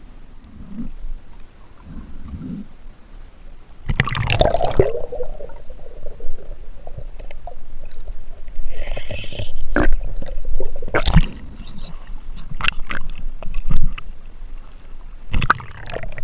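Action camera under river water: muffled gurgling and bubbling, starting with a loud rushing splash about four seconds in as it goes under, with scattered sharp knocks and clicks later on.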